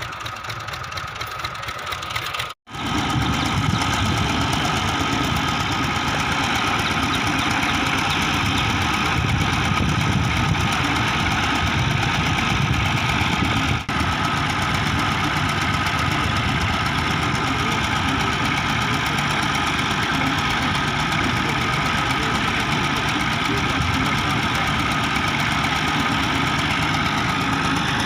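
Tubewell drilling machine's engine running steadily, with a constant high whine over it. The sound cuts out for a moment about two and a half seconds in, then carries on louder.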